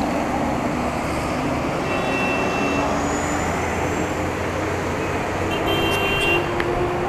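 Steady street traffic noise from a crowd of cars with engines running, with a few brief high thin tones near the middle and again near the end.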